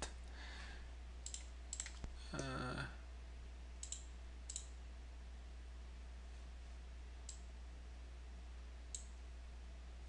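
A handful of sparse single clicks from a computer mouse, spread unevenly over several seconds, over a steady low electrical hum; a brief murmur of a voice comes about two and a half seconds in.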